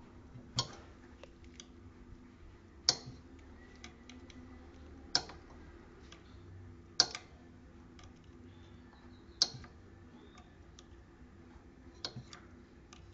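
Sharp single clicks from hand tools working on a Brastemp washing machine's gearbox screws, about one every two seconds, six in all.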